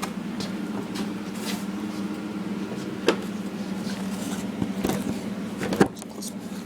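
A few sharp clicks and knocks of a clip and metal parts being handled on a small three-wheeler, the loudest about six seconds in as the clip goes back in, over a steady low hum.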